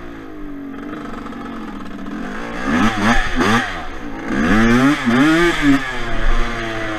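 Yamaha Blaster quad's single-cylinder two-stroke engine at low revs at first. Then the throttle is opened in two bursts, about three and five seconds in, the revs rising and falling each time.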